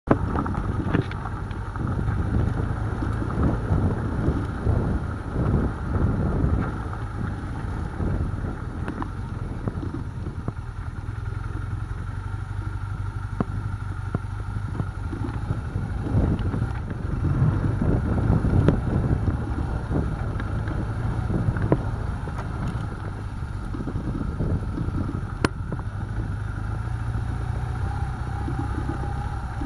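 BMW GS Adventure motorcycle engine running steadily at low speed on a rough dirt track, with frequent knocks and rattles from the bumps and wind buffeting the microphone.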